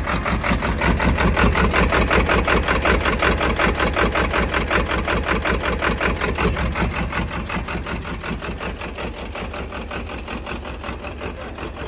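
The engine of a custom hot-rod Ford tractor idling with a quick, even exhaust pulse. It fades somewhat over the second half.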